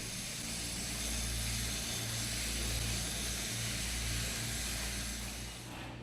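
Electric train running: a steady low rumble under a high hiss, which drops off near the end.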